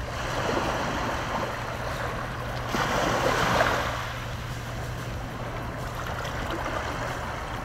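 Small waves lapping and washing up onto a sandy beach. A larger wash about three seconds in is the loudest part.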